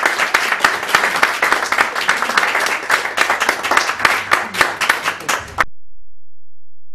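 Audience applauding, many hands clapping, cut off suddenly about five and a half seconds in.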